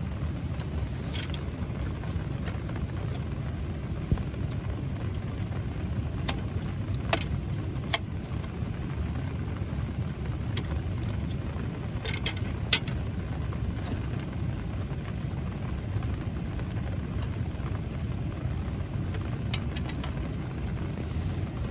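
Steady rain drumming on a camp tarp, with scattered sharp ticks every second or two.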